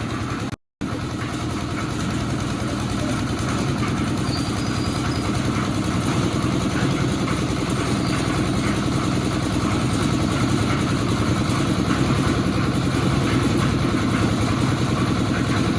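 An engine running steadily at a constant speed, with a brief gap in the sound just after the start.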